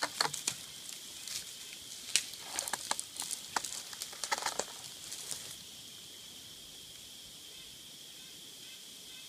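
Footsteps on dry twigs and leaf litter of a forest floor: an irregular string of snaps, crunches and rustles that stops about five and a half seconds in as the walker settles into a kneel.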